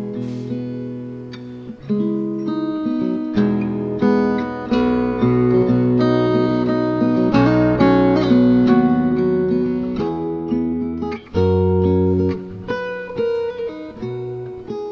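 Acoustic guitar music, a run of plucked notes and chords.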